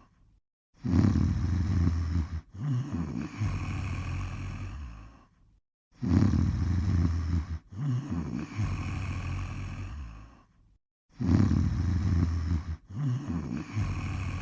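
Snoring in a slow, regular rhythm: three long snores about five seconds apart, each loudest at its start with a short break partway through, then fading, with brief silences between.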